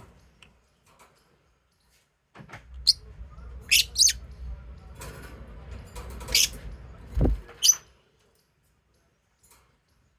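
Lovebirds chirping: a handful of short, sharp, high calls between about 3 and 8 seconds in, over a low background rumble, with quiet stretches before and after.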